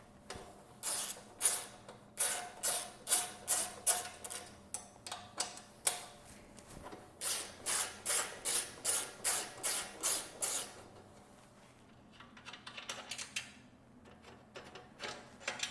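Ratcheting 12mm socket wrench clicking in repeated strokes, about two a second, as bolts are backed out of a motorcycle frame. It comes in two runs, then fainter, sparser clicks near the end.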